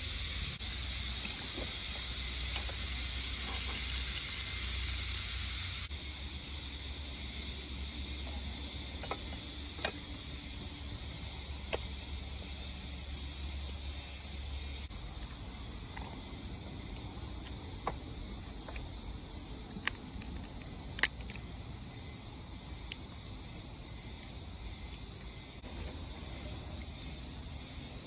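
Steady high-pitched hiss, with scattered light clicks and taps.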